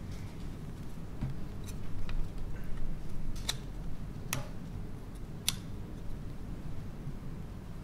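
A few sharp clicks, three louder ones about a second apart in the middle, over a low steady hum.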